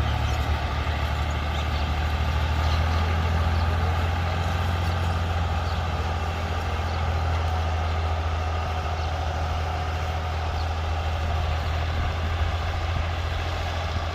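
A tractor-driven wheat thresher running steadily: a strong, unchanging low engine drone with continuous machine noise over it.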